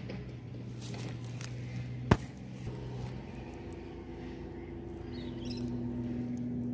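A steady low machine hum, with one sharp click about two seconds in.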